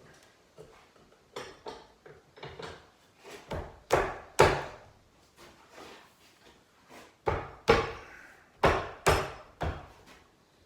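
Wooden knocks, a dozen or so sharp blows at uneven spacing, as glued wooden vise chops are driven into place. The loudest are a pair about four seconds in and a run of five near the end.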